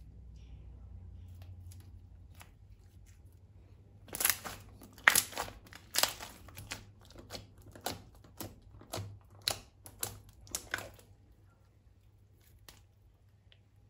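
Thin plastic crinkling and crackling in a run of sharp bursts that starts about four seconds in and stops a few seconds before the end, as slime-filled balloons or piping bags are handled.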